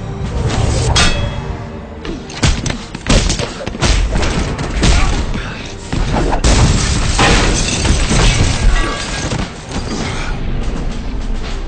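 Action-film fight soundtrack: music under a rapid string of hits, thuds and booms, with crashing impacts.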